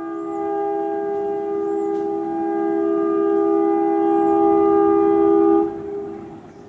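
Diesel locomotive air horn sounding one long chord of several notes, held for about six seconds and growing slightly louder before cutting off, with a short fading tail.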